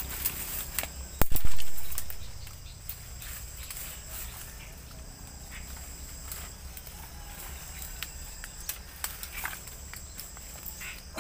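Footsteps crunching and rustling through dry leaves, twigs and bamboo, with scattered small cracks, and one loud heavy thump about a second in. A steady high insect buzz runs underneath.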